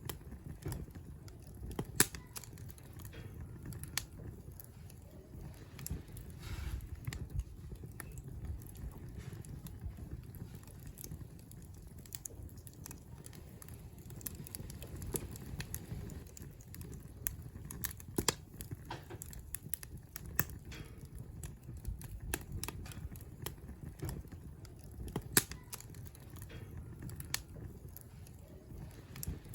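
Wood campfire crackling, with irregular sharp pops over a low steady rumble; one loud pop about two seconds in.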